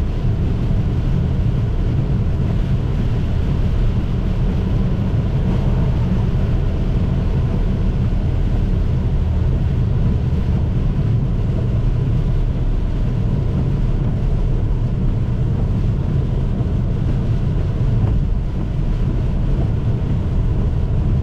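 Steady low rumble of a car driving on a rain-wet road, heard from inside the cabin.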